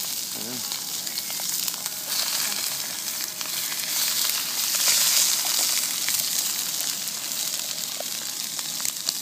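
Sausages sizzling in a frying pan over a gas camping stove, the sizzle swelling about four seconds in as more sausages are laid into the hot pan. A few light clicks sound through it.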